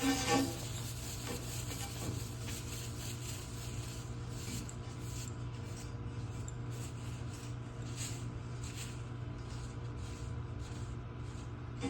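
Repeated scrubbing strokes on copper pipe, irregular and a few a second, over a steady low hum.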